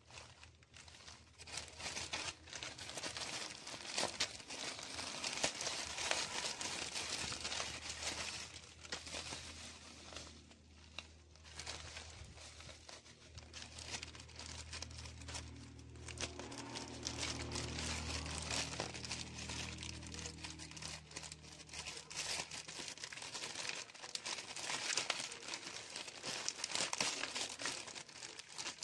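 A plastic courier mailer bag and bubble wrap crinkling and rustling as they are handled and pulled open by hand, in a dense, continuous crackle.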